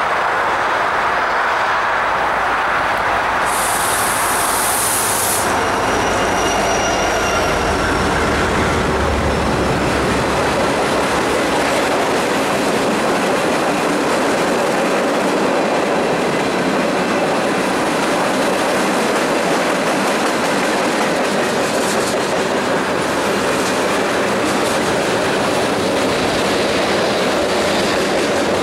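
Canadian National diesel-hauled freight train passing close by. The deep rumble of the lead locomotives swells a few seconds in, with a short hiss, then gives way to the steady rolling noise of flatcars and tank cars with wheels clicking over rail joints.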